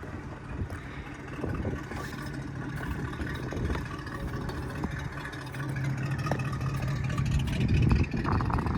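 An engine running steadily with a low hum, growing louder toward the end, with some clattering near the end.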